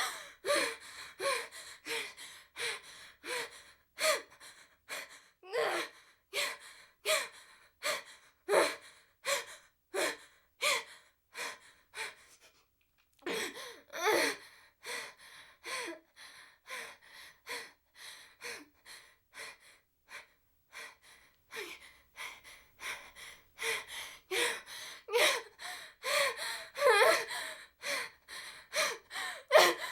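A woman breathing heavily and fast, short gasping breaths in and out at about two a second, with a pause of about a second twelve seconds in.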